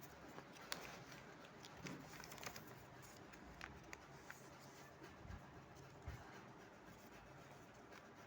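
Near silence: faint room tone with scattered small clicks and taps.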